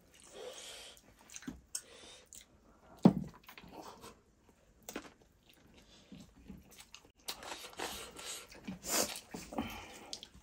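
Chewing, biting and crunching of people eating chicken with their hands, with a loud sharp snap about three seconds in. The eating sounds get busier over the last few seconds.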